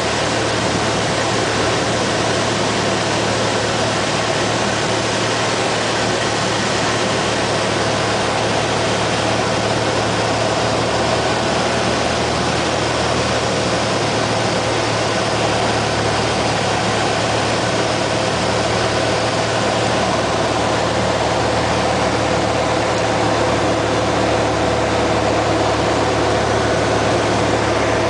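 Light single-engine airplane's piston engine and propeller droning steadily in cruise, heard from inside the cockpit with a constant rush of air noise.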